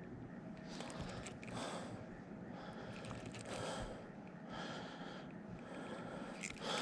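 A man breathing hard, with a few loud breaths a second or two apart.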